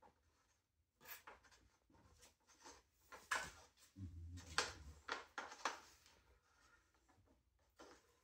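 Faint scattered clicks, taps and rustles of hands working a handlebar onto an electric scooter's stem, with a dull bump about four seconds in.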